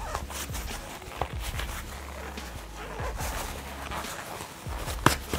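Rustling and small clicks of a soft case and a plastic spare mask lens being handled and taken out, with one sharp plastic click about five seconds in.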